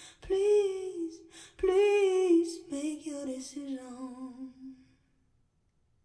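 Female vocalist singing the song's final long-held notes with vibrato, played back through hi-fi loudspeakers in a small wood-lined room. The voice dies away about five seconds in.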